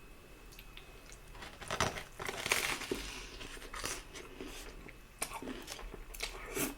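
Close-miked eating: chewing and crunching in short, irregular bursts, starting after about a second and a half of quiet.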